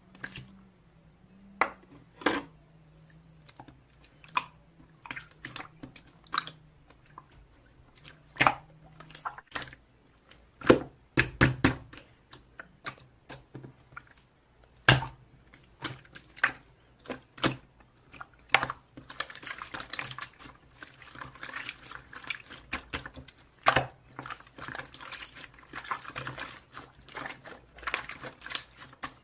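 Slime being squished and pressed by hand: irregular wet clicks and pops, thickening into a dense run of small crackling pops from about twenty seconds in until near the end.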